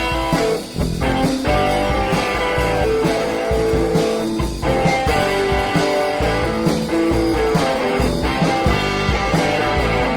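Instrumental rock music led by guitar, with bass and drums keeping a steady beat.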